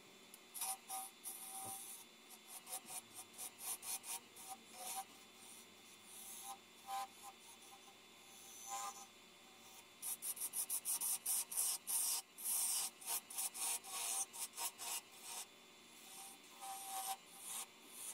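Turning tool scraping and cutting a spinning yew workpiece on a wood lathe: many short rasping strokes, quicker and louder about ten seconds in.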